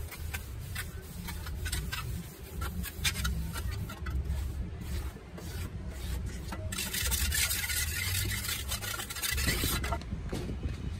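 Metal trowel scraping and rubbing across cement in a tile mould: many short strokes, then one longer continuous rasping scrape about seven seconds in that lasts about three seconds. A steady low hum runs underneath.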